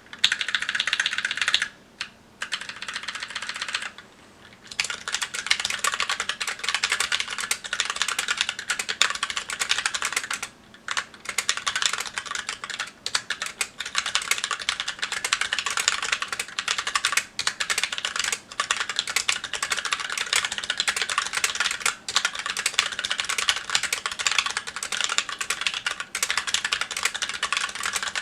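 Continuous typing on a Magicforce 68 mechanical keyboard with stock Gateron Brown tactile switches and GMK Olive keycaps: a dense run of keystroke clacks, broken by short pauses about two, four and ten seconds in.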